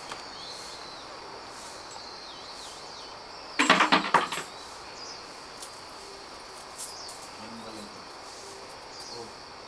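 Coins dropped into a wooden shrine offertory box: a brief clatter and clink about three and a half seconds in, over a steady high drone of insects.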